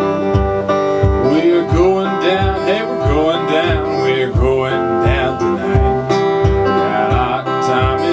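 Acoustic guitar instrumental break in a country-blues song, with a steady low bass beat about twice a second under the melody.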